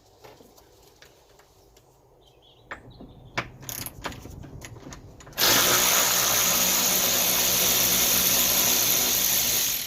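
A few light clicks and knocks, then a power drill runs steadily for about four seconds undoing a bolt, and stops suddenly.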